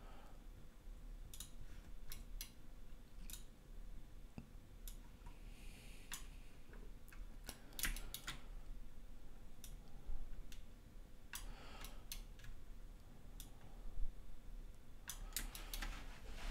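Computer mouse and keyboard clicking, irregular single clicks and short quick runs of clicks with pauses between.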